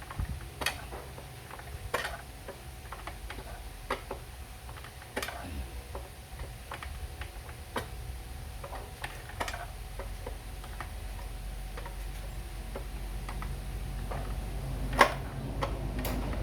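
Irregular light clicks and taps of hand tools and small metal parts being handled, over a steady low hum, with one sharper click near the end.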